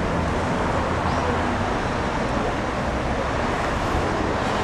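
Steady city traffic noise at a busy intersection: cars passing, a continuous hum of engines and tyres with no single vehicle standing out.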